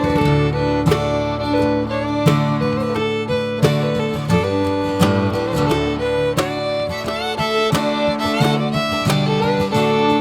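Background music with acoustic guitar and fiddle, in a bluegrass or country style.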